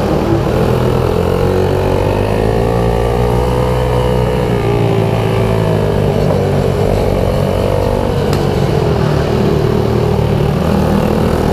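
Pit bike engine running hard under way. Its pitch rises over the first few seconds, dips, then holds fairly steady as the bike laps a track.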